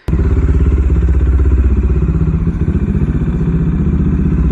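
Bajaj Dominar 400's single-cylinder engine running through an aftermarket Akrapovic full-system exhaust with a dB killer fitted, a loud, steady run of low exhaust pulses that cuts in suddenly at the start.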